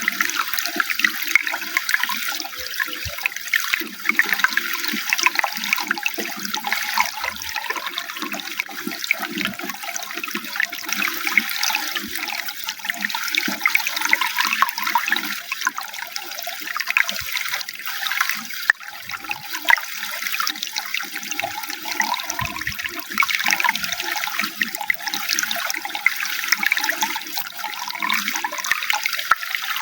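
Running water splashing and trickling steadily, with a bubbling, gurgling texture.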